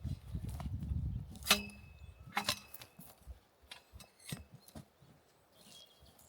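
A low rumble fades out after about a second and a half, followed by a run of about eight sharp, irregular knocks and clicks, a few with a brief metallic ring.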